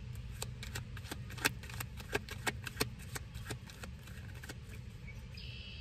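Tarot cards being shuffled by hand: a run of light, irregular clicks for about the first four seconds, over a steady low hum.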